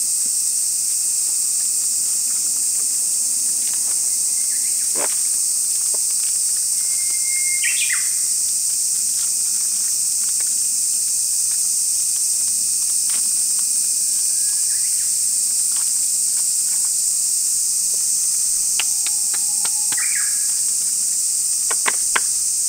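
A steady, high-pitched drone of insects, with a few short bird chirps and some light clicks near the end.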